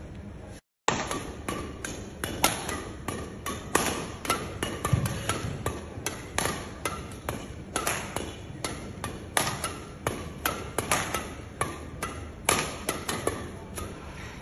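Badminton rackets striking the shuttlecock in a fast doubles rally: a long run of sharp, ringing knocks, about one to two a second, with one deeper thud partway through.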